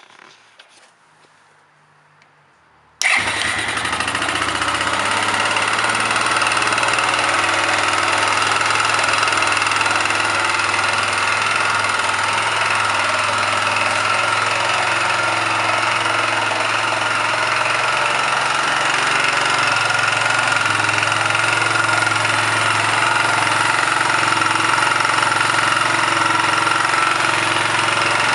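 1999 Kawasaki Bayou 220 ATV's single-cylinder four-stroke engine comes in abruptly about three seconds in and runs steadily at idle. The owner suspects an engine knock.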